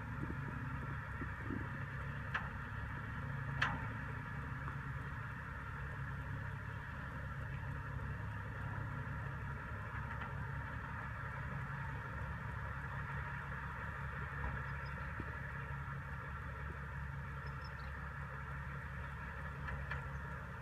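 Tipper truck engine idling steadily with its bed raised, with two short sharp clicks a few seconds in.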